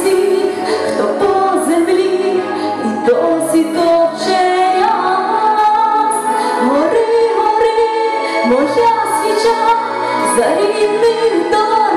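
A woman singing a song into a handheld microphone over instrumental accompaniment, with a steady bass line and regular cymbal strokes under the voice.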